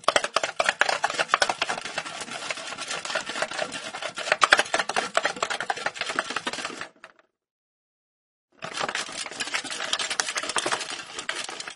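A small ball rolling and rattling inside a plastic box as the box is rotated, giving dense, fast clicking. The rattle stops about seven seconds in and starts again a second and a half later.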